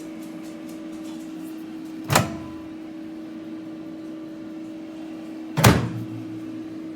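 Countertop microwave oven running with a steady hum, broken by two loud knocks about two seconds in and again some three and a half seconds later.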